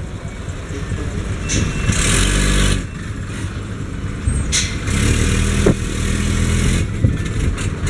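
Heavy diesel truck engine running at low speed as the truck moves slowly, its note rising twice. There is a hiss of about a second near the start and a single sharp knock a little after the middle.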